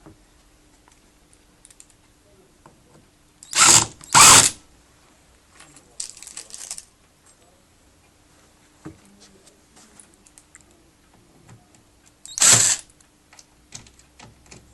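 Power drill driving screws into the cabinet's shelf clamps in short bursts: two quick bursts close together about four seconds in and one more near the end, with faint clicks between.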